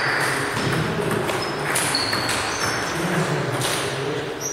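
Table tennis balls pinging sharply off tables and bats a few times in an echoing sports hall, with several rallies going on at once and voices faint in the background.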